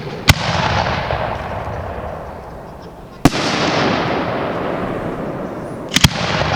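Aerial fireworks bursting: a sharp bang just after the start, another a little after three seconds, and a close pair near the end, each trailing off over a couple of seconds.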